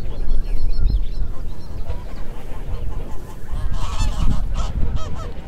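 A large flock of geese honking and calling all at once, many overlapping calls, swelling about four seconds in. A low rumble runs underneath.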